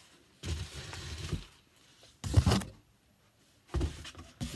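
Cardboard box being moved and handled: three bursts of scraping and rustling, the middle one loudest.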